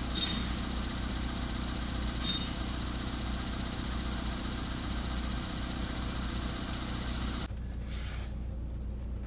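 Volkswagen Polo sedan engine idling after a cold start, with only a light knock that is not strongly pronounced. The sound changes abruptly about seven and a half seconds in, as the hiss of the upper range drops away.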